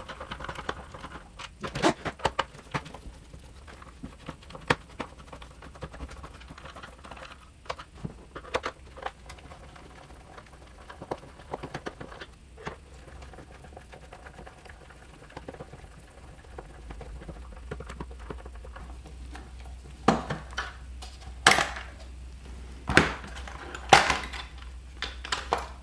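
Screwdriver backing screws out of the hard plastic housing of a 12-volt tire compressor: scattered small clicks and scrapes, with several louder sharp plastic clacks in the last few seconds as the case is handled.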